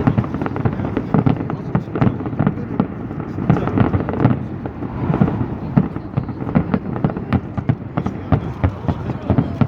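Fireworks going off in a rapid, irregular volley of bangs and crackles.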